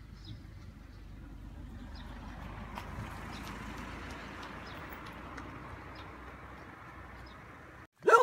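A dog barks once, short and loud, near the end. Before it, a low rushing noise slowly swells and eases off, with a few faint chirps.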